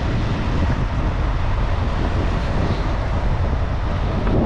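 Steady vehicle running noise with wind rushing over the microphone while moving along a road.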